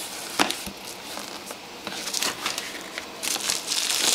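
Cardboard packaging being handled, with a few sharp knocks in the first second and sliding rustle as the inner tray comes out of its sleeve. About three seconds in, plastic bubble wrap around the device starts crinkling.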